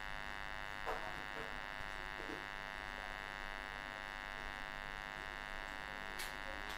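Steady electrical buzz with many evenly spaced tones, the constant background hum of the recording, with a faint click about a second in and another near the end.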